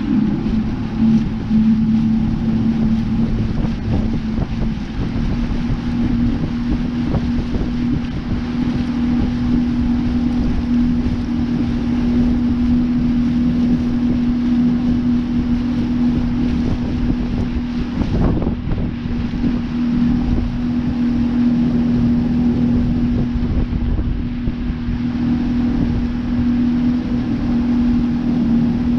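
Outboard motor of an aluminium fishing boat running at a steady cruising speed, one unchanging pitch, with water rushing past the hull and wind buffeting the microphone.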